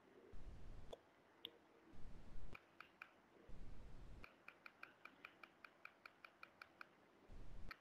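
Faint computer mouse sounds: a few scattered single clicks, then from about four seconds in an even run of about fourteen scroll-wheel ticks, some five a second, as the document is scrolled.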